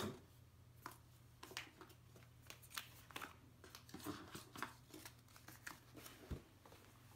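Cardboard packaging being handled: quiet, scattered taps, scrapes and rustles as a laptop's power adapter and coiled charging cable are lifted out of the box's paper insert, with a louder knock at the very start.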